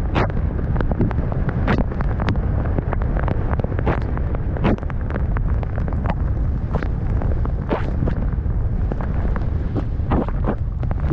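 Wind buffeting the camera's microphone during a fast snowboard descent in powder, a steady low rumble. Irregular sharp scrapes and knocks from the board hitting the snow run through it.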